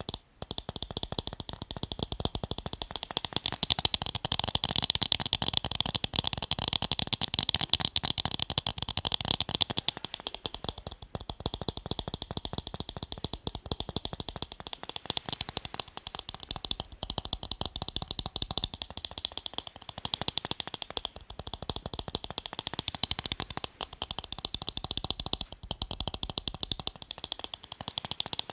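Fast fingernail tapping on a pair of eyeglasses, a dense run of quick light clicks that goes on in stretches of a few seconds with brief changes between them.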